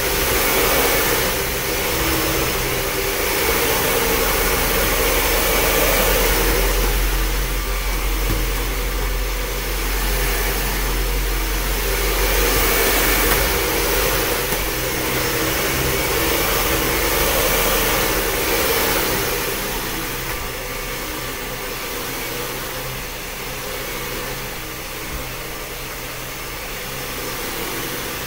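Dyson DC41 upright vacuum cleaner running on carpet, its steady motor noise swelling and easing every few seconds and a little quieter in the last third.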